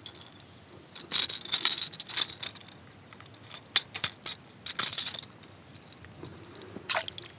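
Metal treble hooks of a Berkley Bucktooth Choppo topwater lure clinking and jingling against fishing pliers in a series of quick, light metallic rattles, as the hooks are worked free of a bass's lower jaw.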